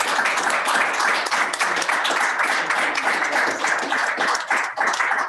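An audience applauding: many hands clapping together in a dense, steady patter.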